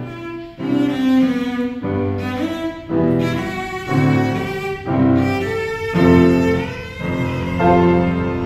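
Cello played with the bow: a melodic line of held notes, changing about once a second, with piano accompaniment.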